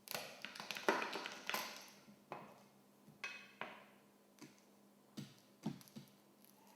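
Garlic cloves being crushed on a cutting board: a quick cluster of knocks for about two seconds, then about seven separate knocks, one with a brief metallic ring.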